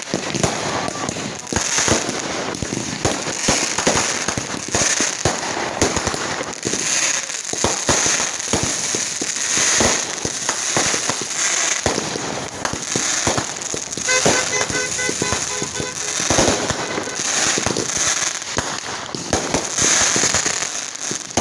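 Fireworks going off in a dense, continuous barrage of rapid crackling and bangs. About two-thirds of the way through, a brief pulsing tone is heard.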